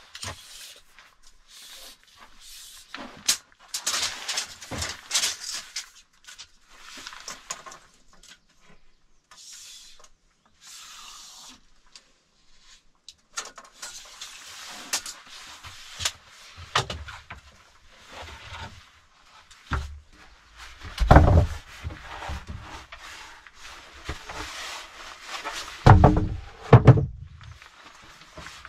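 Handling noise of someone measuring and moving wooden boards: rustling, tape-measure clicks and irregular knocks of wood. There are heavier thumps of timber in the second half, the loudest a little before the end.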